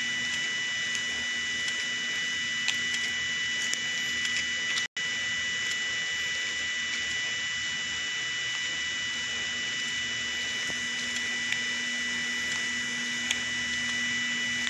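Steady hiss with a constant high whine and a faint low hum, unchanging throughout; the sound cuts out completely for a split second about five seconds in.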